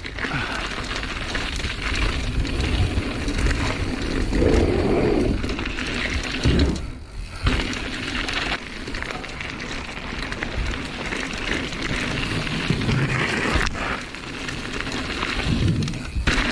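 Mountain bike rolling fast over gravel and dirt, its tyres and frame making a steady rough noise. About seven seconds in the noise drops out briefly while the bike is in the air off a jump, then comes back with a sharp thump on landing.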